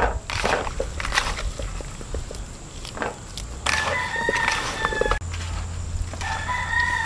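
A rooster crowing twice: one call about halfway through, and a second that starts near the end, falling in pitch. Before the first crow there are soft knocks and clicks of raw chicken pieces being mixed by hand in a pot.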